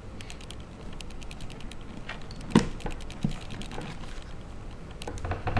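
Light clicks and taps of an iPhone 3GS front glass assembly being fitted and pressed into its housing, with one louder knock about two and a half seconds in and a quick run of taps near the end.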